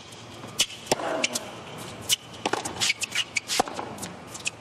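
Tennis rally on a hard court: sharp racket-on-ball strikes about a second apart, shoe squeaks, and a player's short grunt with a falling pitch about a second in.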